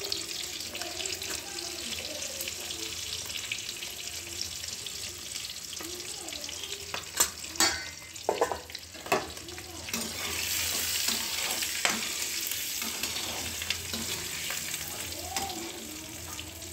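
Hot oil sizzling steadily around whole boiled eggs frying in a kadhai, just sprinkled with turmeric and red chilli powder. About seven seconds in come several sharp knocks, and the sizzle grows louder for a few seconds after them.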